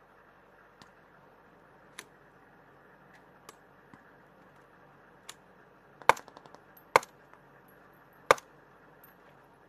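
Sporadic rifle fire: a few faint, scattered shots, then three loud single shots about a second apart in the second half.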